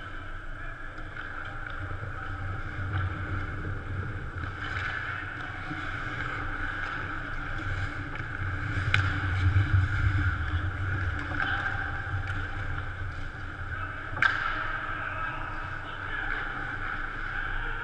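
Indoor ice-rink game sound: a steady hum and wash of skates scraping on the ice, with two sharp clacks of stick on puck, about nine and fourteen seconds in.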